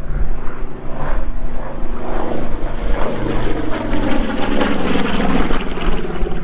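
A TBM Avenger's Wright R-2600 radial engine running loud and steady as the aircraft flies past, a continuous propeller drone.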